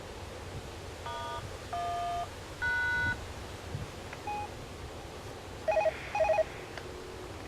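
A series of electronic beeps at different pitches, like telephone keypad tones: three half-second tones in a row, a short blip, then two loud quick double beeps, over a low steady rumble of wind and road noise.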